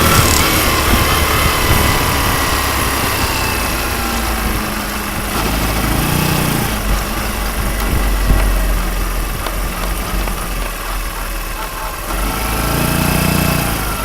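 Honda Super Cub's 105 cc bored-out single-cylinder engine running on a test run, its pitch falling right at the start as the revs drop. A manual cam chain tensioner has just been fitted to cure a cam chain ticking, which the owner says is no longer heard.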